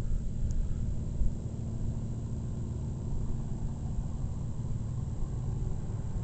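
Distant tow plane's propeller engine droning steadily as it climbs out towing a glider, under a low rumble of wind on the microphone.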